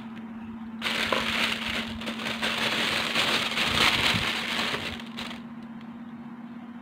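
Crinkling, crackling handling noise that starts about a second in and stops a little after five seconds, over a steady low hum.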